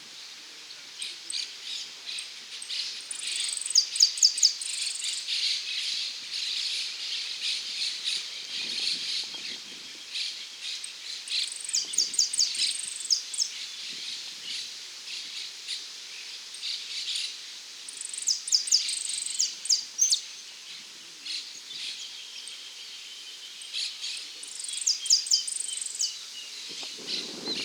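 Saffron finch (dorado) singing in a song contest: continuous high twittering, broken by four louder bursts of rapid high notes about every seven seconds.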